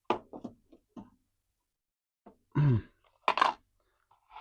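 Hard plastic toy parts clicking and knocking as a fence piece is pushed into a plastic action-figure stand, with a short grunt about halfway through.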